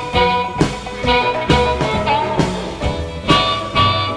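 Background music: an upbeat song with guitar and a steady beat of about two a second, in a stretch without singing.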